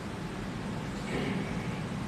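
Steady room noise, an even hiss over a low hum, with a faint brief sound about a second in.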